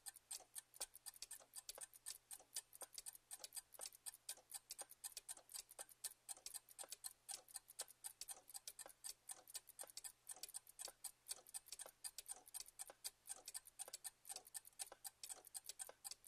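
Faint, fast, even ticking, about five clicks a second, like a mechanical clockwork.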